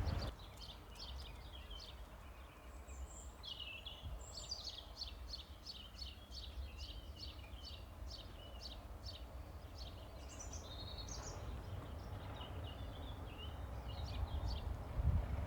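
Small birds singing, rapid runs of short high chirps and trills, over a steady low rumble.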